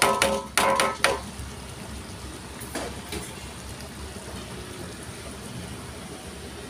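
A large aluminium wok clanks and rings under a few knocks in the first second as the last ingredients are shaken in from a plastic basin, then a low steady cooking noise with faint stirring as the chicken opor simmers.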